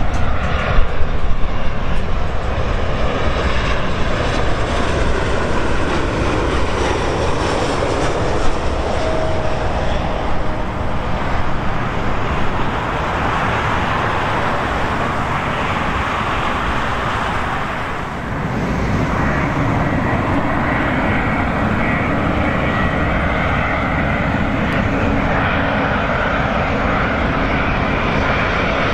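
Jet engines of a Boeing 737-800 passing low on final approach and landing. About eighteen seconds in, the sound switches to another airliner on approach, an Airbus A350-900, whose engines run with a steady, even noise.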